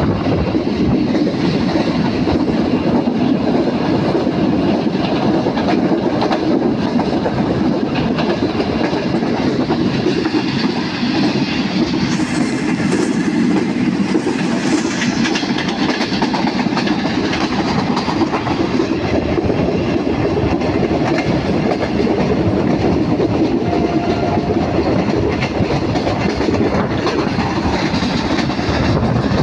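Passenger train running at speed, heard from an open coach window: a steady, loud noise of wheels running on the rails.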